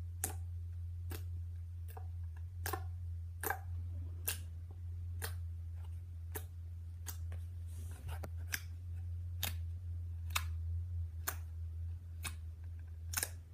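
Wet, watery slime being poked over and over with a finger: a sharp sticky click about once a second at an even pace, over a steady low hum.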